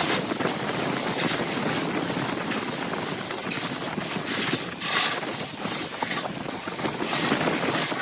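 Wood lathe spinning a blank of glued bamboo chopsticks and epoxy resin while a turning tool cuts it, giving a steady noisy scraping that wavers in level.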